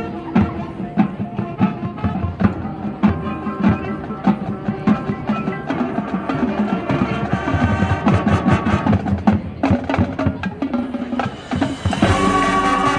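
Marching band playing, with rapid percussion strikes over held tones from the winds; about twelve seconds in, the full band comes in louder.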